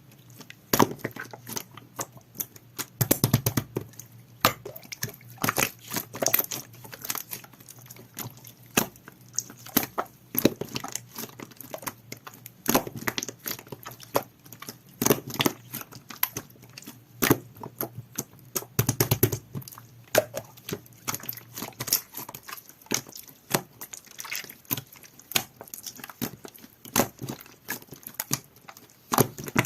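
Jelly-textured clear slime being squished and worked by hand, making a dense, irregular run of sharp clicks and pops.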